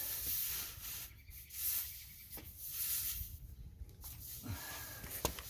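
Air hissing faintly from a car tire's puncture, coming and going, with a couple of light clicks near the end.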